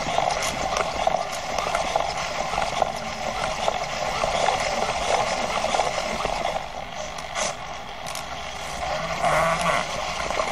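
Hexapod robot's hobby servo motors whirring and grinding as it walks in a slow one-leg-at-a-time gait; the servos' gears are almost worn through, creaking and grinding.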